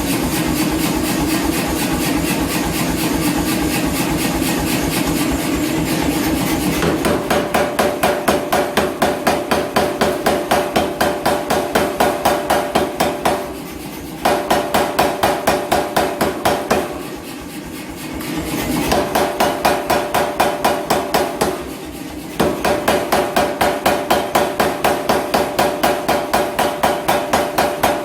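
Power hammer striking fast and steadily through a newly forged flatter, in an even pounding rhythm that stops briefly three times.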